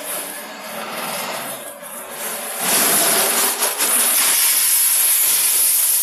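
Double-layer quartz color sorter running, with sorted quartz stone streaming out of its outlets into plastic crates. A loud, steady hiss sets in about two and a half seconds in and holds.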